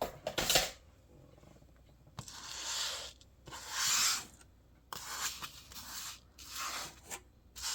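Handling noises: a short clatter about half a second in, then several bursts of rustling and rubbing as jewelry and packaging are moved around.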